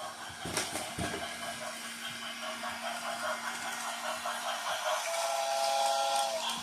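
Battery-powered toy train running, its small electric motor humming steadily under a dense rattle of the train on its track, with a couple of clicks near the start and a few short steady tones about five seconds in.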